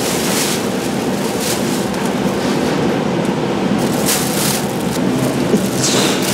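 Plastic sheeting and bags crinkling and rustling in several short bursts as large wrapped cutlassfish are handled and laid in a crate. A steady loud rushing noise runs underneath.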